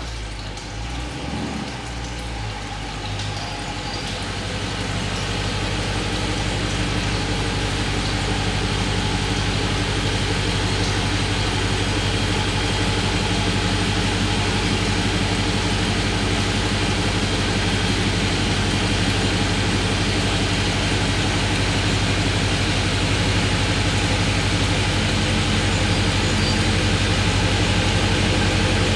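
Dodge Charger's engine idling steadily after a cold start, growing louder over the first few seconds and then holding even.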